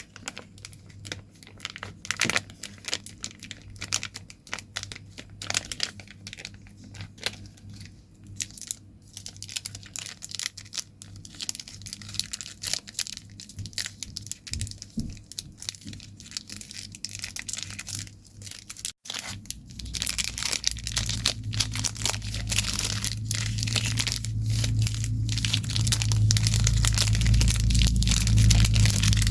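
Close-up crinkling, crackling and tearing of sweet wrappers, a dense run of irregular crackles. About two-thirds through, after a brief break, the crackling turns denser and louder over a low hum, growing louder toward the end.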